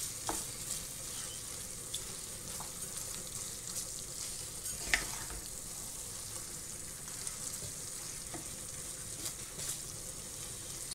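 A beef and vegetable stir fry sizzling steadily in a frying pan while a wooden spoon stirs it, with a few light knocks and one sharper knock about halfway through.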